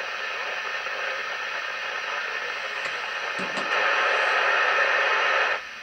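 Static hiss from an Icom ICB-1050 27/81 FM CB receiver's speaker, with the squelch open on channel 19 and no station answering the radio check. The hiss grows louder about two-thirds of the way in, then cuts off abruptly near the end as the squelch is turned to close it.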